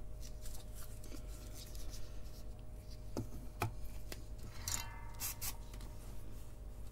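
Small handling noises on a workbench: two light clicks a little after three seconds in and a short scraping rustle near five seconds, over a steady low electrical hum.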